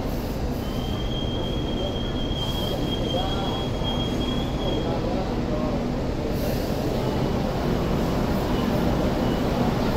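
Hong Kong Light Rail vehicle running slowly on curved track, its wheels squealing in one high steady tone for about four and a half seconds over the low rumble of the train.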